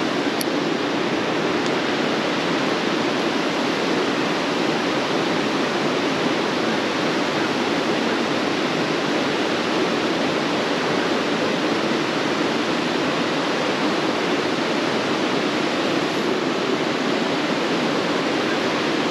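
Steady rush of a mountain trout stream, water running over riffles and a small cascade.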